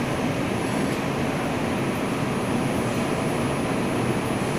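Bombardier R142 subway car heard from inside as the train pulls out of a station: a steady running noise of the moving train.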